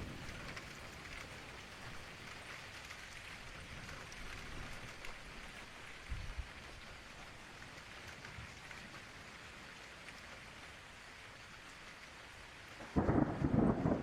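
Steady rain falling, with a short low rumble about six seconds in and a sudden loud crack of thunder near the end.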